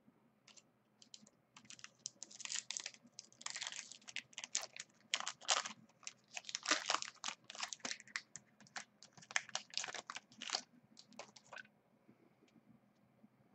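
Foil wrapper of a 2011 Bowman Platinum baseball card pack crinkling and tearing as it is opened by hand: a dense run of crackles that dies down about two seconds before the end.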